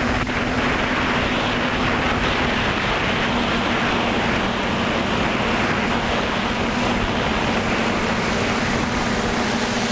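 Electric motor and propeller of an FPV model aircraft, heard from its onboard camera: a steady hum over a broad hiss, with the hum's pitch shifting slightly about three seconds in.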